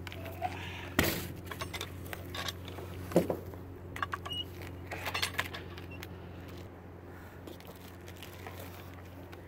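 Scattered knocks and metallic clinks from a cant hook's steel hook and handle being worked against a log, with the sharpest knocks about one second and three seconds in, over a steady low hum.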